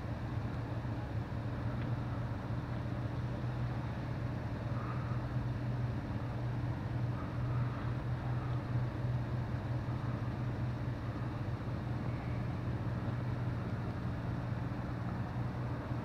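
Vehicle engines idling with a steady low hum.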